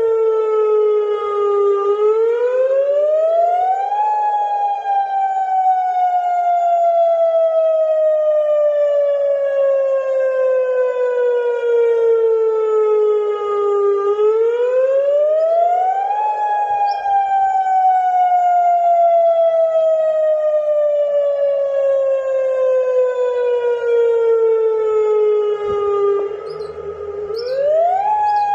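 Civil defence warning siren sounding a wail. Its pitch climbs over about two seconds, then falls slowly for about ten, three times over. It is the signal for the start of a curfew.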